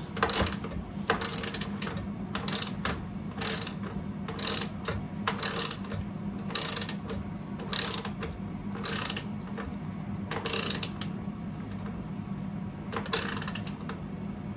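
Socket ratchet clicking in a run of short strokes, roughly one a second, as a bolt is tightened by hand. It draws an expanding insert nut up tight against the inside of a steel roll-bar tube. The strokes thin out after about eleven seconds, with one last stroke near the end.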